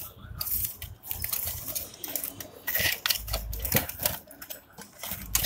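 Plastic-and-card window box of a toy fire engine being handled: irregular sharp clicks, taps and crinkles, with a low rumble of handling noise about three seconds in.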